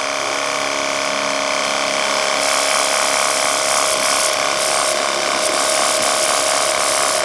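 Cordless battery-powered pressure washer running steadily, its small pump motor giving a constant mechanical hum while the foam-cannon attachment sprays soapy water with a hiss. The spray hiss gets stronger about two and a half seconds in.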